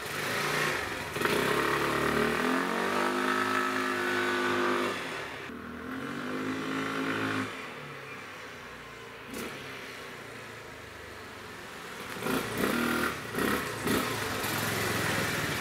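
A GY6 125cc single-cylinder four-stroke scooter engine pulls away, its pitch rising as it accelerates, then fades as the scooter rides off. Near the end it grows louder again as the scooter comes back, with a few short bursts of throttle. It is freshly fitted with a new clutch, belt and variator rollers and now drives the rear wheel properly.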